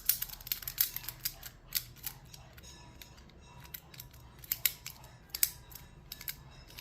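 A knife blade working in the shackle gap of a Brinks 50 mm laminated padlock for a knife bypass: irregular sharp metallic clicks and light scrapes as the blade catches on the shackle and latch.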